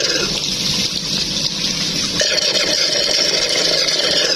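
Submersible pond pump driving a homemade venturi underwater: a steady rushing churn of water and drawn-in air bubbles, with a low pump hum beneath.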